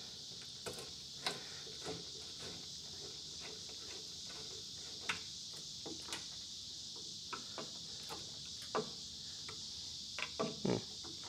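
Scattered light clicks and ticks of screws on the Humvee's dash switch panel being turned by hand and handled, over a steady high chirring of insects.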